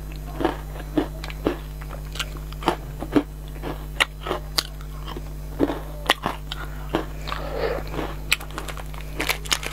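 Close-up crunching and chewing of crisp caramel biscuits, a string of short, sharp crunches at an irregular pace.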